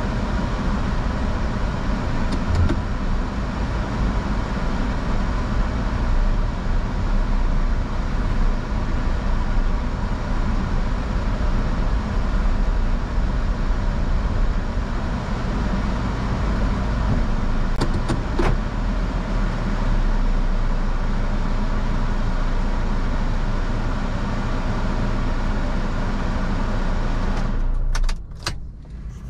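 Car driving, with a steady mix of engine and road noise that drops away suddenly near the end.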